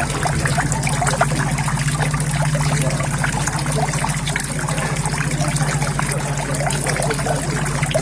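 Water steadily trickling and splashing into a koi pond, with a steady low hum beneath it.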